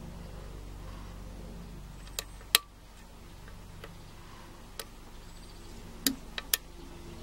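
Sharp, scattered metallic clicks of a lock pick working the pins of a Schlage Primus SX euro cylinder held under tension: about six clicks, the loudest about two and a half seconds in and three close together near the end, over a steady low hum.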